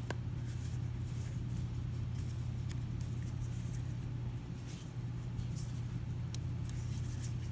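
Plastic shell halves of a Dodge Charger key fob being pressed and worked together, with a few sharp light clicks and short scratchy scrapes of plastic, over a steady low hum. The shell is resisting closing back up.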